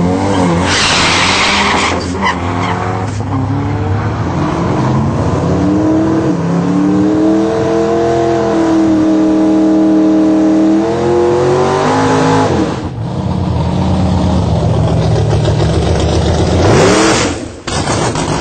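Turbocharged 2.3-litre four-cylinder of a 1998 Ford Ranger pulling hard down a drag strip, with a clutch the owner says is slipping badly. A loud rush of noise about a second in gives way to the engine note climbing and holding high for several seconds, then falling away near twelve seconds. Another loud rush of noise comes near the end.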